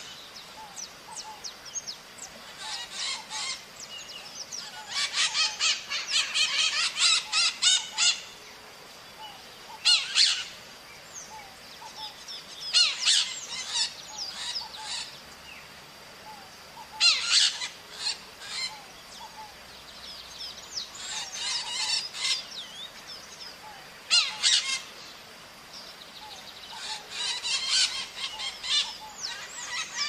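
Maritacas (small Brazilian parrots) calling in repeated bursts of rapid, harsh screeching calls every few seconds, with a faint steady high tone underneath.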